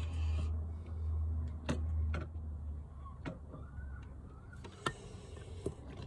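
A handful of sharp, irregular clicks, about five, over a low hum that fades out about two and a half seconds in.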